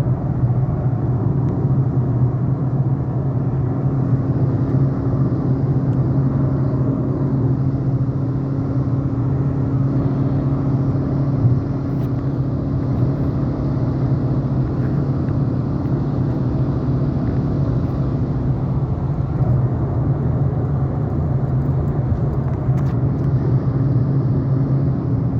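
Steady running noise of a motor vehicle: a constant low engine hum under even road and wind noise.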